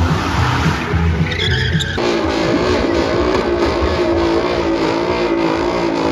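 Cars doing burnouts, each engine held at high revs while the rear tyres spin and squeal. About two seconds in, the sound cuts to a Ford Mustang's engine held at a steady high pitch that wavers slightly as the throttle is worked.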